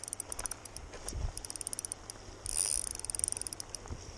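Fishing reel (KastKing Zephyr 1000) clicking rapidly in short runs, the longest and densest about two and a half to three and a half seconds in.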